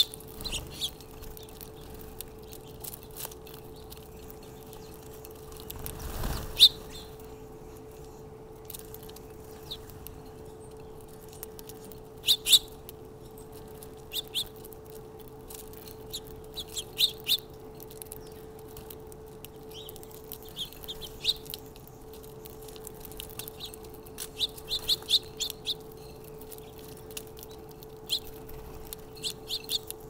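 House sparrows chirping in short, scattered calls, some in quick runs of several, over a steady low hum. A brief louder noise stands out about six and a half seconds in.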